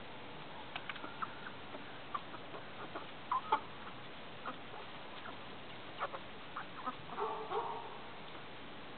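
Young pullets clucking in short, scattered calls, with a louder, longer call about seven seconds in.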